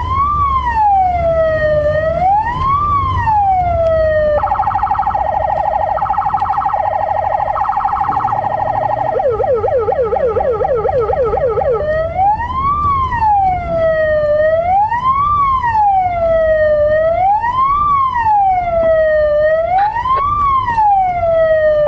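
Police car siren changing modes: a slow rising-and-falling wail, switching about four seconds in to a two-tone hi-lo, then briefly to a fast yelp, and back to the slow wail about twelve seconds in. A low rumble of engine and road noise runs underneath.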